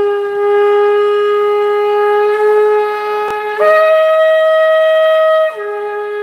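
An 85 cm shofar with a small mouthpiece, blown in a long held low note. It jumps up to a higher note about three and a half seconds in, then drops back to the low note near the end: the two common notes of the horn.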